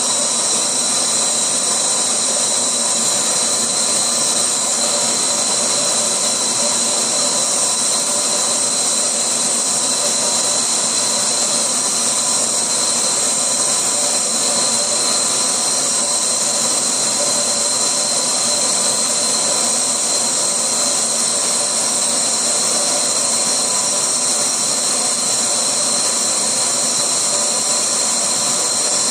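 GCC LaserPro Spirit GX CO2 laser engraver running as it engraves line work into a wooden plate: a steady hiss with a constant high whine.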